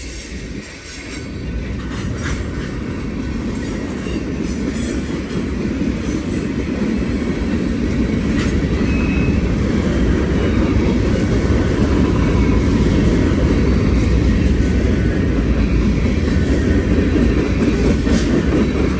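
Freight train cars rolling past, a heavy steady rumble of wheels on rail with occasional clacks over the rail joints, growing louder over the first half and then holding.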